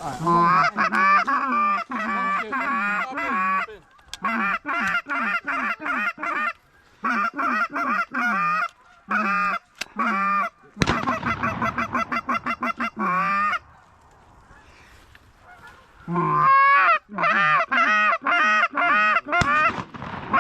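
Goose call blown in quick runs of short honks and clucks, about four to five notes a second, breaking off and starting again five times, with a longer pause a little past the middle. It is calling to Canada geese to bring them in.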